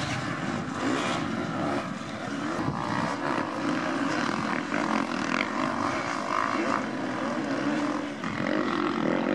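Motocross dirt bike engines running hard on the track, revving up and down as the riders race past.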